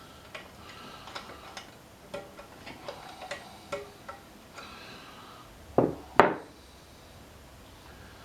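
Light metallic clicks and taps of engine parts and tools being handled while the valves of an 8 hp Briggs & Stratton flathead are propped open and checked for guide wear, then two louder knocks about six seconds in.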